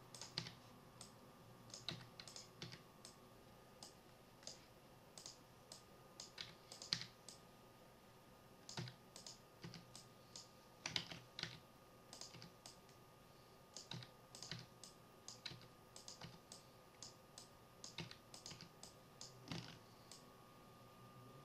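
Faint, irregular clicks of a computer keyboard and mouse, a few a second with short pauses, over a faint steady whine.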